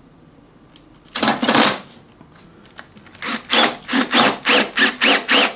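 Cordless drill boring a pilot hole through a PVC fitting into the workbench edge: one short run about a second in, then quick trigger pulses, about three a second, each with a motor whine that rises and falls.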